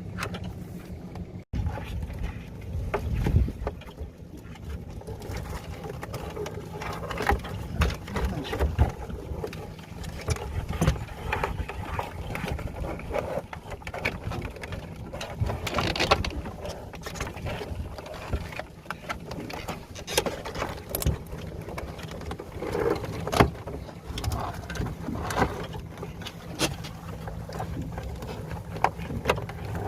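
Small boat's engine running steadily, with irregular knocks and clatter on top.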